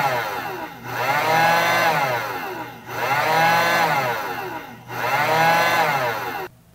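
Drill Master 1500-watt heat gun's fan motor whining up and down in pitch about every two seconds as the PID controller pulses power to it through a solid state relay near the set temperature. The sound then cuts off abruptly about six and a half seconds in as the heat gun shuts off.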